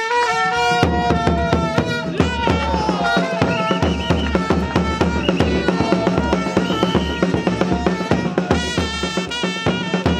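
Music with drums and percussion keeping a fast, steady beat under a melody line.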